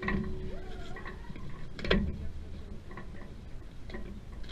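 Fire hose being pulled off a fire apparatus's hose bed: a single sharp knock about two seconds in and a few lighter clicks and taps.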